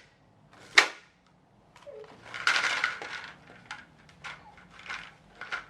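Homemade shaker, a plastic water bottle filled with hard loose objects, being shaken and knocked by a baby: a sharp knock about a second in, a longer rattling shake around the middle, then several short rattles.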